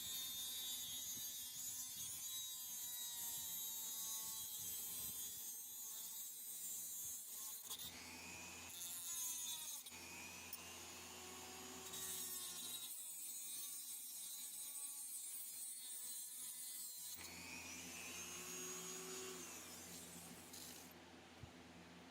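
Faint scraping and rubbing of hand work on a small metal knife bolster, with short squeaks, over a low steady hum.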